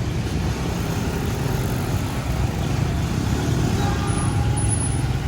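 Steady low rumble of vehicle noise with no clear separate events.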